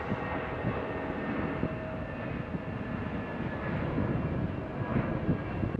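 Eurowings Airbus A320's twin turbofan engines at takeoff power as the jet lifts off and climbs: a steady, loud jet noise with high whining tones, growing a little louder near the end.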